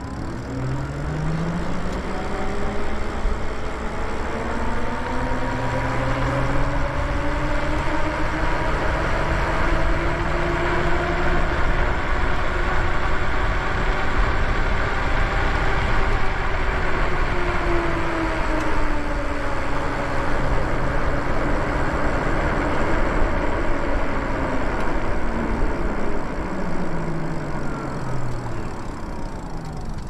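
Lyric Graffiti e-bike's electric drive whining, its pitch rising as the bike speeds up from near a standstill to about 30 mph, then falling as it slows near the end. Wind rush and tyre noise run underneath.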